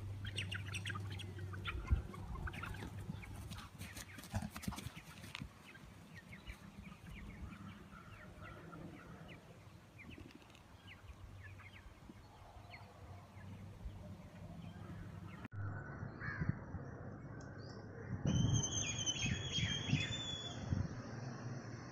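Birds chirping outdoors, many short calls, with chickens among the birds present. The sound changes abruptly about two-thirds of the way through, and near the end a high, drawn-out call lasts about two seconds.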